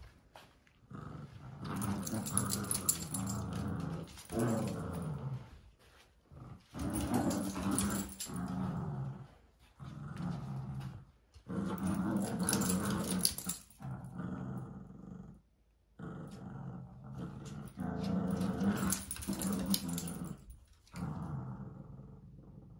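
Cavalier King Charles Spaniels play-growling during a tug-of-war over a plush toy. The growls come in long spells of a few seconds each, broken by short pauses.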